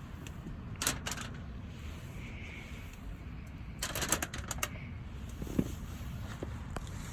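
Two short bursts of light clicking and rattling, about a second in and again about four seconds in, then a single soft knock, over a steady low rumble.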